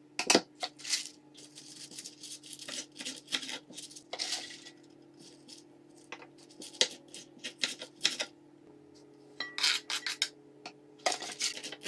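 Kitchen knife chopping spinach leaves on a cutting board: quick, irregular taps of the blade striking the board in several short runs. A faint steady hum runs underneath.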